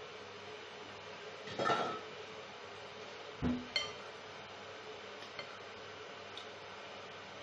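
A metal fork clinking and scraping against a ceramic bowl as noodles are picked up. There is a short scrape about a second and a half in, then a dull knock and a sharp ringing clink near four seconds, and a couple of faint taps after.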